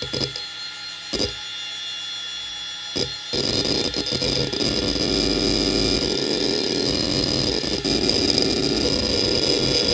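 IBM DMVS 9 GB SCSI hard drive (1999) with a steady high spindle whine and a few separate head-seek clicks. About three seconds in, a continuous rapid chatter of head seeks starts and runs on, louder, as Windows XP Check Disk scans the drive.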